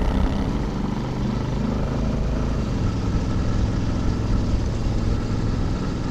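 Honda Africa Twin's parallel-twin engine running steadily under way, with wind noise over it.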